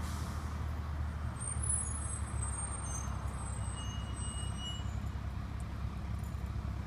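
A TTC Orion VII city bus's diesel engine running with a low, steady rumble as the bus pulls slowly around a corner. Faint high squeals come in about a second and a half in and fade out around five seconds.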